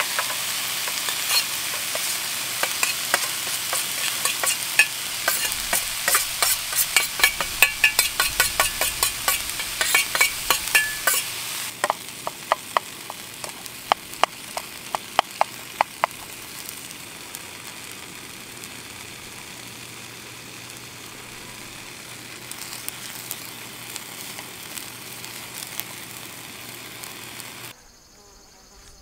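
Steak and broccolini sizzling in a frying pan on a portable butane stove, with a spoon clicking and scraping in the pan as rice is spooned in and stirred. About twelve seconds in, the sizzle drops to a quieter hiss and the clicks soon stop. Just before the end the sound cuts off.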